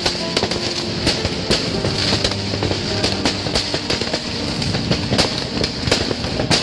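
Fireworks going off in a dense, irregular run of bangs and crackles, several a second, with music playing underneath.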